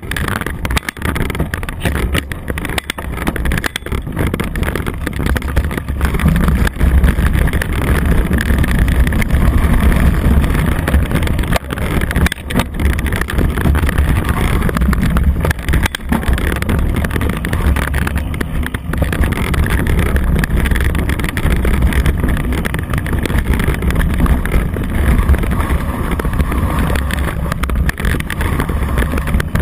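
Rough-riding noise from a bike-mounted camera on a leaf-covered dirt trail: a steady low rumble of wind buffeting the microphone, broken by frequent knocks and rattles as the bike jolts over bumps.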